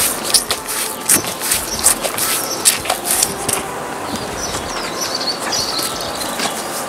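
Cow grooming another cow, rubbing its chin along and licking its hide: a run of short scuffing and smacking sounds, mostly in the first half. Small birds chirp in the background from about halfway through.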